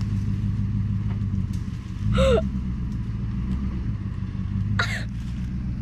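Nissan Armada's 5.6-litre V8 running steadily, getting louder about two seconds in. Two brief high calls cut in over it, about two and five seconds in.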